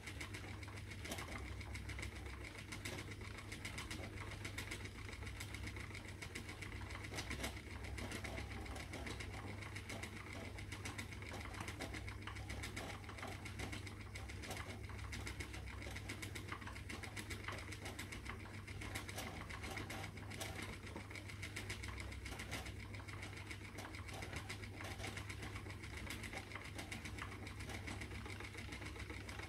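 A spinning wheel running steadily while plying silk and merino singles into yarn: an even mechanical whirr with many faint ticks.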